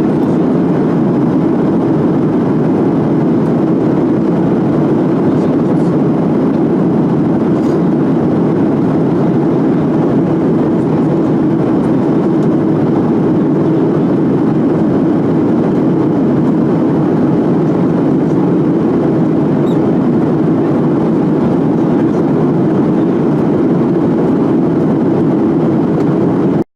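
Steady roar of a jet airliner's engines and airflow heard inside the cabin during the flight after takeoff. The noise cuts off suddenly near the end.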